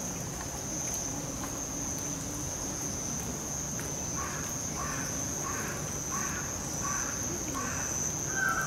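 Steady high-pitched insect drone, with a bird giving a run of about eight short calls, roughly two a second, from about four seconds in.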